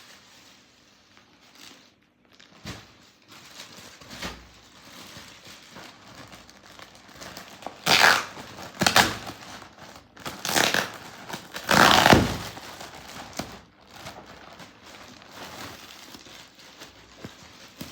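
Packaging being handled, crinkling and tearing as a comforter is unboxed, with four louder bursts of rustling in the middle stretch.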